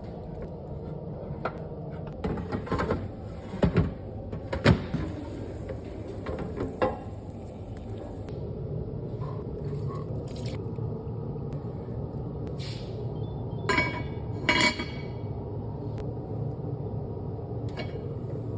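Kitchen clatter: dishes and utensils knocking and clinking in a few short bunches, over a steady low hum.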